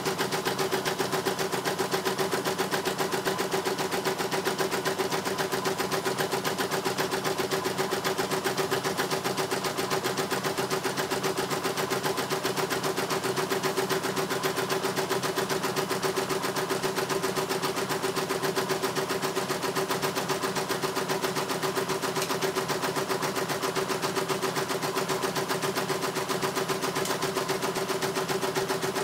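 CNY E900 computerised embroidery machine stitching a test design: a fast, even needle rattle over a steady motor hum, running without a break.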